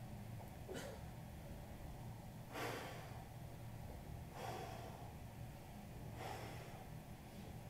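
A man breathing hard with the effort of inverted sit-ups: four short, forceful breaths, one about every two seconds.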